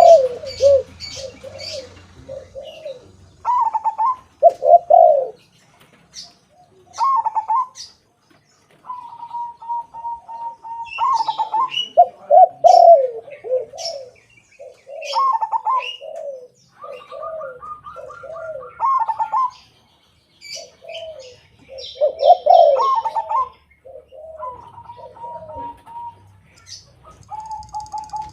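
A zebra dove and a white spotted dove cooing in turns. The spectrogram shows lower coos repeated in short phrases alongside higher, drawn-out coos and a rolling trill, with brief high chirps between the phrases.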